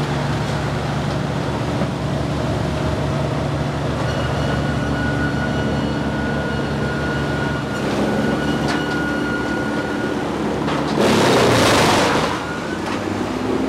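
Engine of a compact wood-loading machine running steadily, with a loud burst of rushing noise lasting about a second and a half near the end.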